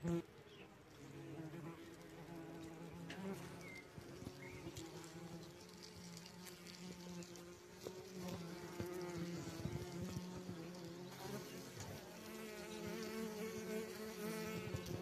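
Paper wasps buzzing in flight close by, a steady wavering hum that grows louder over the first few seconds and stays up. A short knock sounds right at the start.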